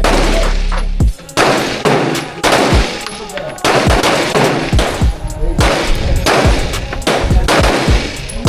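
Gunshots fired in quick succession, about one or two a second at uneven spacing, each followed by a ringing echo.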